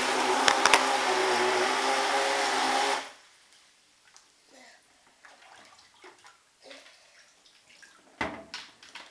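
Electric RC speedboat's motor and propeller running with water churning, a steady hum over loud hiss that cuts off abruptly about three seconds in. Afterwards, faint water lapping and small knocks, with a sharper knock near the end.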